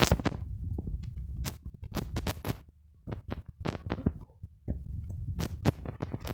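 A string of irregular clicks and knocks over a low rumble, quieter for a moment about three seconds in.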